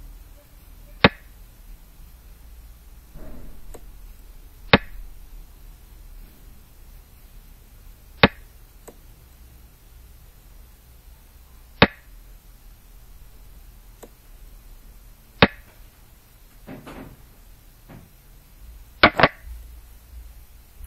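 Sharp clacks of xiangqi pieces being set down on the board, one move sound about every three and a half seconds, with a quick double clack near the end.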